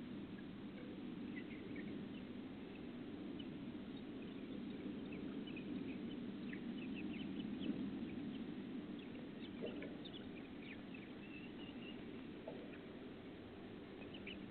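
Backyard chickens clucking and chirping faintly in short scattered calls over a steady low hiss, heard through a Ring security camera's microphone.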